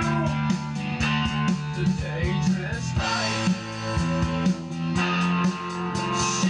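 Guitar music with a steady beat, played through a Heathkit AA-32 stereo tube amplifier.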